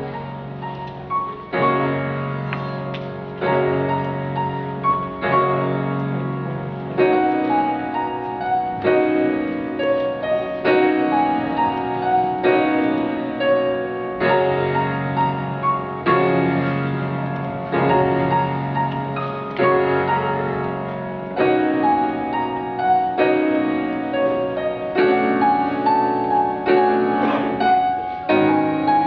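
Grand piano played four hands as a duet: a steady rhythm of low repeated chords under a melody line in the upper notes.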